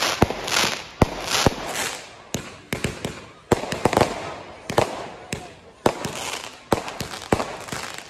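Fireworks display: an irregular, rapid run of sharp bangs from bursting rockets and shells, about two or three a second, with a noisy hiss between the bangs.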